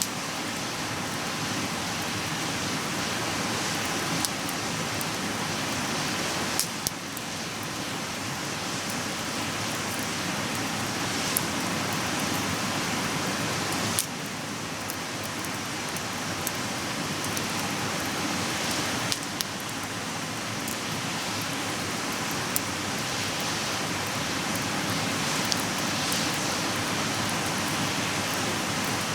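Wood fire burning in a small fire pit: a steady hiss with a sharp crackle or pop every few seconds.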